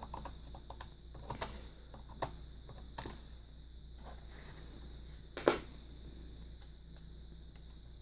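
Small metal clicks and scrapes of a jeweler's screwdriver working a hard-drive screw out of a laptop's plastic drive bay, with one louder click a little past halfway.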